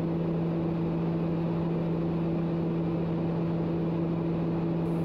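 Cabin noise of a TBM 900 turboprop in cruise: a steady drone from its five-blade propeller and PT6 turbine engine, with a low even hum and its overtone over a wash of airflow noise.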